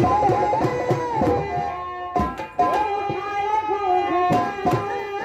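Instrumental music: a held, gliding melody line over hand-drum strokes.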